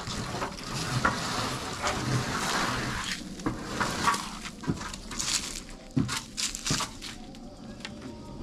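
A corrugated asbestos-cement roof sheet scraping and crackling as it is slid down off the roof, with a few sharp knocks in the second half.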